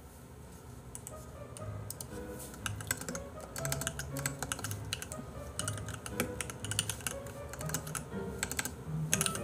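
Computer keyboard being typed on, with quick irregular runs of key clicks, over soft background music with slow low notes.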